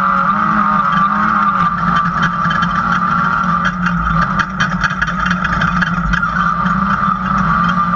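Off-road race car's engine running hard, heard from inside the cockpit, with short knocks and rattles from the chassis around the middle as it crosses rough dirt.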